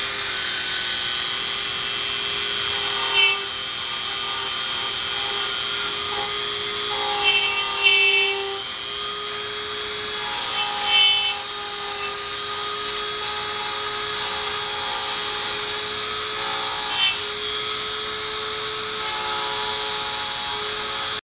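Dremel rotary tool running at high speed with a steady whine, its small bit grinding holes through insulation foam board. A few short, louder grinding moments come when the bit bites into the foam.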